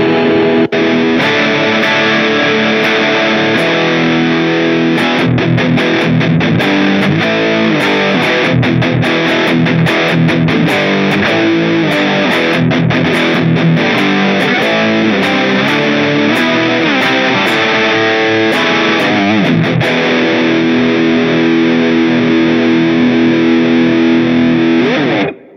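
AIERSI LP19 single-cutaway electric guitar with two humbuckers, played through heavy distortion: picked riffs and held notes that stop abruptly shortly before the end.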